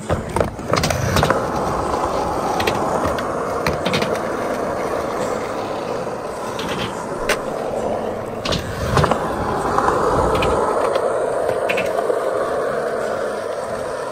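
Skateboard wheels rolling over concrete and ramp surfaces, a steady rolling rumble with sharp knocks every so often from the board and trucks.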